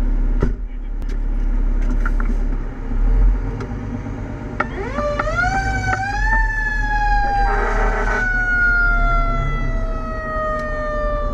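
Fire engine's mechanical siren heard from inside the cab over the low drone of the diesel engine: a sharp click early on, then about four seconds in the siren winds up, rising in pitch for about two seconds before slowly falling away. A short, harsh blast cuts in midway through the fall.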